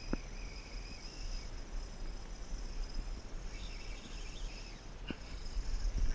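Fishing reel drag screaming as a hooked bonefish runs and pulls line off the reel: a steady high-pitched whine that weakens briefly in the middle and comes back strongly.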